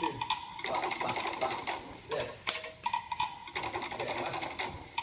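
Fast drum music for Cook Islands dancing: a rapid, even clatter of beats.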